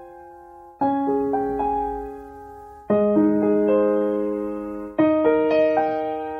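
Slow piano opening of a song: soft chords struck about every two seconds, each ringing on and fading before the next.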